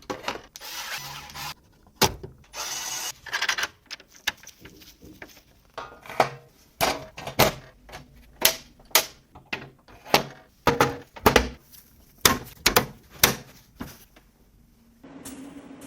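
PC parts and case panels being handled and fitted: a run of sharp clicks and knocks with a few short scrapes. About fifteen seconds in, a steady hum with one low tone starts.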